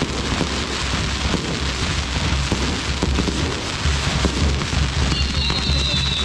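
Fireworks on a castillo firework tower and shells bursting overhead, giving a dense, continuous crackle and hiss. About five seconds in, a whistling firework starts, its pitch slowly falling.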